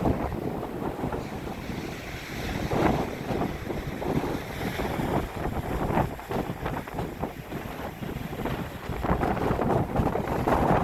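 Heavy typhoon-driven surf surging and breaking on the shore in irregular swells, with strong wind buffeting the microphone.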